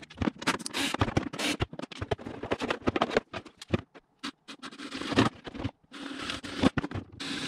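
DeWalt Atomic cordless drill with an 8 mm bit boring through an RC truck's plastic body from the inside, the bit cutting through plastic lined with shoe glue and mesh tape. It comes as many short, irregular scratching and crackling sounds, steadier for a couple of seconds near the end.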